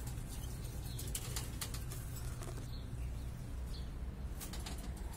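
Caged domestic canaries: a few faint short chirps, plus scattered clicks and brief flutters of birds moving about the wire cages, over a low steady rumble.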